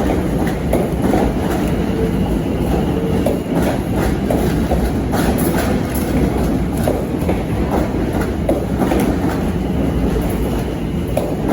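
Train moving along the platform: steady rumbling running noise with irregular wheel clicks over rail joints and points.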